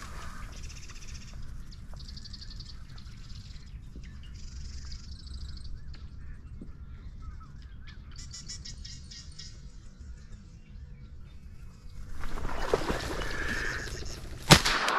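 Low rumble with faint high bird chirps, then a loud rustling rush about twelve seconds in, ending in a single sharp 28-gauge shotgun shot near the end.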